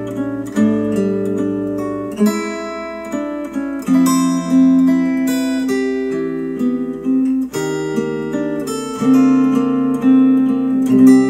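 Acoustic guitar music, strummed and plucked chords changing every second or two, played back through Polk Audio XT15 bookshelf speakers.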